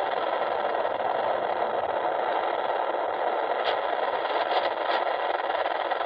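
Steady, thin rushing hiss from an RC airplane's onboard audio feed in flight: the Carbon Cub S2's electric motor and wind noise, played through a small FPV monitor's speaker. A few faint ticks come in the second half.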